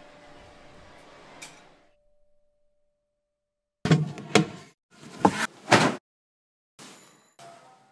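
A doorbell's ring fades out over the first two seconds. After a short silence, a washing machine's lid and drum clunk loudly about four times, with the rustle of clothes being stuffed in, then a few quieter knocks near the end.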